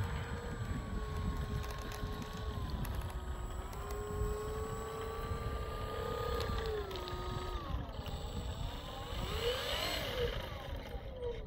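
Brushless electric motor and three-blade propeller of a Dynam Focke-Wulf Fw 190 RC warbird running at part throttle: a whine that steps up and down in pitch with the throttle and briefly rises and falls again near the end. Wind rumbles on the microphone underneath.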